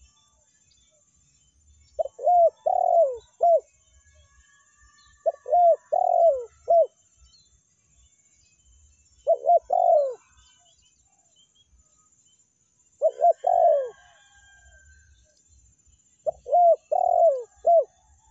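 Spotted dove (tekukur) cooing: five phrases of three or four short, falling coos, one every three to four seconds.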